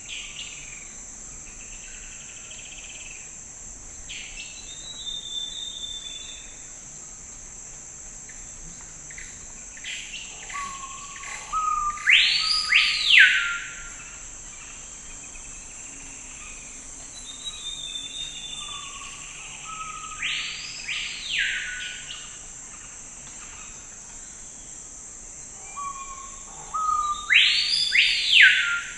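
Forest ambience: a bird repeats the same loud whistled phrase three times, about every eight seconds, with softer calls from other birds between. A steady high insect drone runs underneath.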